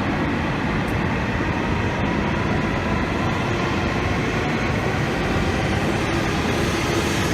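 Shinkansen train moving along the station platform: a steady rumble of running gear and air with no change in level.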